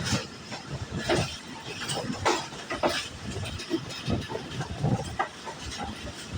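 Passenger train passing, with uneven sharp knocks and clatter from its wheels on the track.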